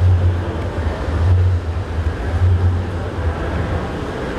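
Outdoor street noise: a steady low rumble with a deep hum that swells and fades about once a second.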